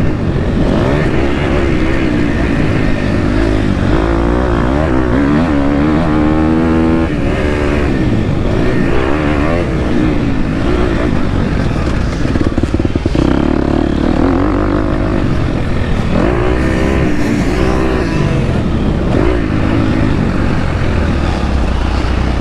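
2023 KTM 250 SX-F's single-cylinder four-stroke engine being ridden hard on a motocross track, heard from on the bike. Its pitch climbs and drops again and again with throttle and gear changes.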